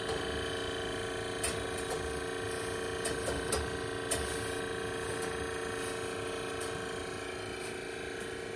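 Steady hum of a fan-forced oven's fan running with the door open, with a few light metallic clicks and scrapes in the first half as a metal baking tray is slid out over the wire oven rack.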